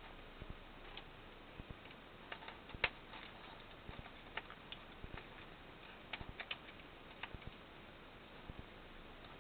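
Irregular small clicks and taps of plastic parts being handled and pressed together: the white body shell and frame of a Syma X20 mini quadcopter being fitted back together by hand. The loudest click comes about three seconds in, over a faint steady hiss.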